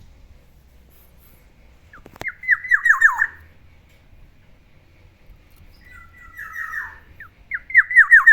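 Black-naped oriole (kepodang) calling: two runs of quick notes, each sliding downward, about four seconds apart. A sharp click comes just before the first run.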